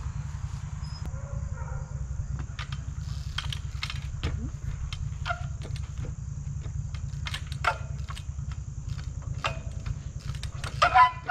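24-inch Echo trials bike being hopped on its back wheel: a string of sharp clicks and knocks from the tyres, chain and frame as it bounces and lands. Near the end comes a short, loud squeal from the rim brake, all over a steady low rumble.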